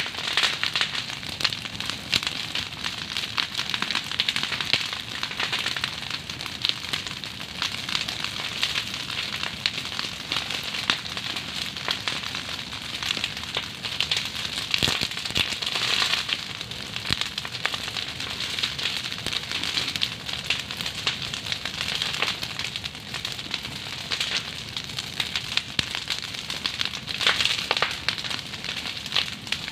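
Fire of dry fronds and brush crackling with dense, continuous pops, burning over a wild boar carcass to singe off its hair.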